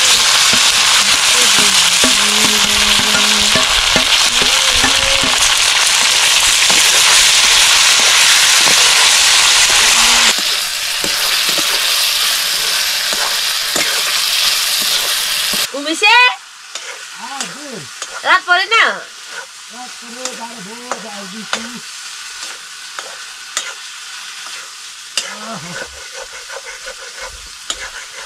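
Food frying in hot oil in a pan, a loud steady sizzle that drops in level about ten seconds in and cuts off suddenly just past the middle. After that the sound is much quieter, with a few short calls that glide in pitch.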